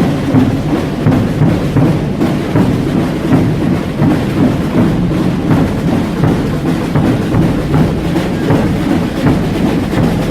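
Massed drums and bass drums played together by a large group of drummers, a dense, loud, continuous beat with no pause.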